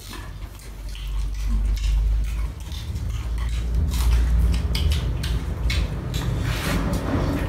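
Eating sounds: chewing food, with chopsticks clicking against a metal bowl now and then, over a steady low rumble.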